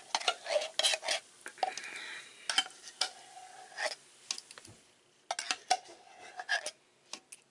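Spoon scraping and knocking inside a tin can as thick condensed cream of celery soup is scooped out into a bowl. It comes as a quick string of clicks and scrapes, with a short lull about four seconds in.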